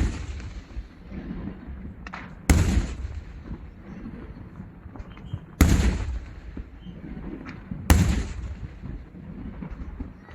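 Daytime firework shells bursting overhead: three loud bangs, two to three seconds apart, each trailing off in a rumbling echo, with small scattered pops between.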